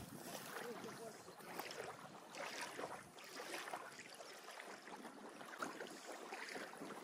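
Small waves gently washing onto a sandy lake shore, a soft, uneven wash that swells and fades.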